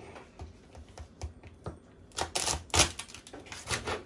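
Chef's knife cutting through a boiled crab's shell and knocking on a wooden cutting board: a run of crunches and knocks, thicker and louder from about halfway.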